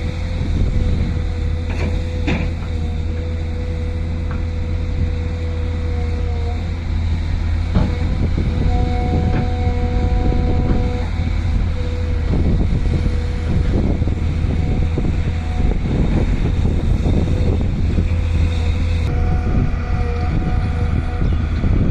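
Volvo excavator's diesel engine running steadily, with a whining tone that comes and goes and a few scattered knocks.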